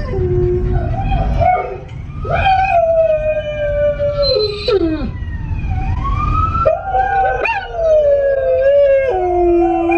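Recorded howling played through a car's speakers: long, overlapping howls that glide up and down in pitch, over the low rumble of the car on the road.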